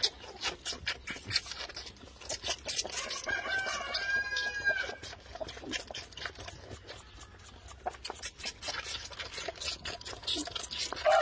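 Lambs sucking on bottle teats, a rapid run of sucking clicks. A rooster crows once in the background about three seconds in.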